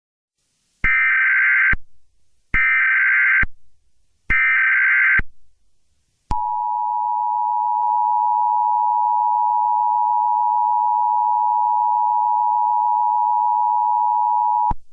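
Emergency Alert System header: three one-second bursts of SAME digital data tones, then, after a short gap, the steady two-tone EAS attention signal held for about eight seconds. Together they announce that an emergency alert message is about to follow.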